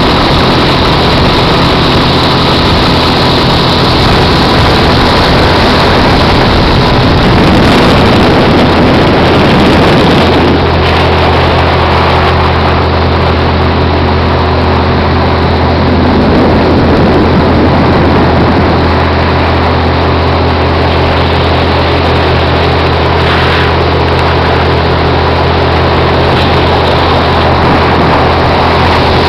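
Bass boat's outboard motor running at speed, a steady engine drone under rushing wind and water noise. The engine note shifts slightly about a third of the way through.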